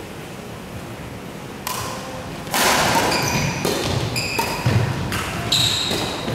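Sports shoes squeaking on an indoor court floor during a badminton doubles rally: short, high-pitched squeaks from about two seconds in, with several thuds from rackets and footwork.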